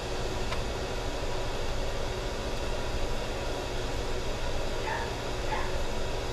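A dog yips faintly twice, a little after halfway, over a steady background noise.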